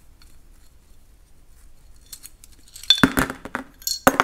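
Faint ticks of a screwdriver working small screws out of a carburetor throttle body. About three seconds in, small metal parts and the screwdriver are dropped onto the workbench, making a loud clinking clatter, with a few more clinks near the end.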